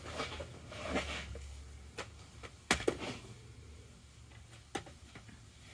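Snap ring pliers and metal transmission parts clicking and tapping as they work at a snap ring inside a TH350 transmission's gear set: a handful of faint, separate clicks, two close together midway, over a low hum that fades about two seconds in.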